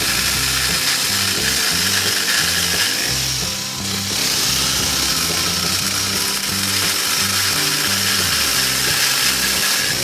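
Pole-saw attachment on a Honda GX35 four-stroke brush-cutter engine running steadily at high revs, its chain cutting through a tree branch. Background music with a stepping bass line plays underneath.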